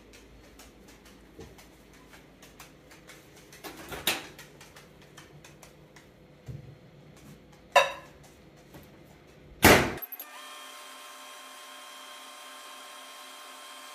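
Microwave oven in use: knocks and clacks as its door is opened and a bowl of milk is set inside, then the door shut with a loud bang nearly ten seconds in. Right after, the oven starts and runs with a steady hum.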